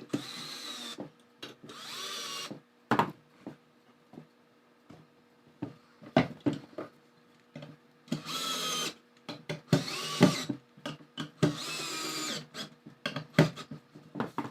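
Drill driver driving wood screws in short runs, its motor whine rising and falling in about five separate bursts. Sharp clicks and knocks come in between.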